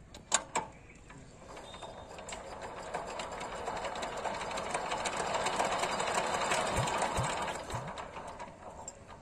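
Diesel engine of a two-wheel power tiller being hand-cranked: a few clicks as the crank engages, then a rapid mechanical clatter that builds over several seconds and dies away again without the engine catching.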